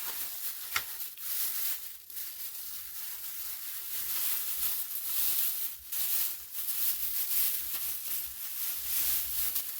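Rustling and crinkling of wrapping as items are dug out of a box of packed smoke alarms, with a sharp click a little under a second in.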